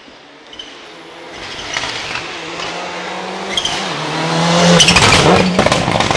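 Rally car approaching at speed, its engine note growing louder and rising in pitch, then dipping sharply about five seconds in as the car reaches its loudest.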